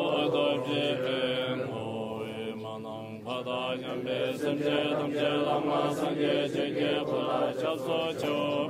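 Tibetan Buddhist chanting: a voice reciting prayers in a continuous, rhythmic chant, easing off about two seconds in and picking up again just after three seconds.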